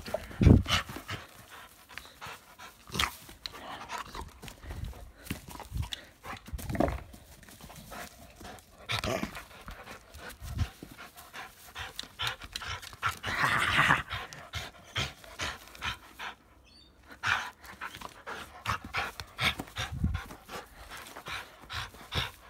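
A dog panting close to the microphone while playing tug with a ring toy, with scattered knocks and rustles throughout.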